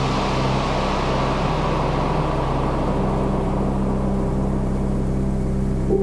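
Boat motor running steadily with a low hum, and water rushing past that dies down about halfway through, when a steady higher tone comes in.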